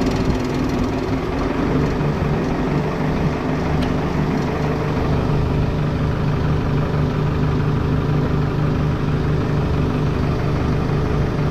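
Engine of heavy farm equipment idling steadily, a constant low hum with no revving.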